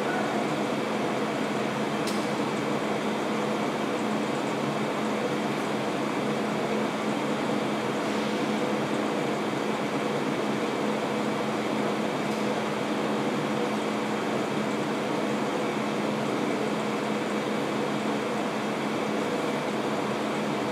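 Steady hum and hiss of room air conditioning: an even rush of air with a constant low tone beneath it.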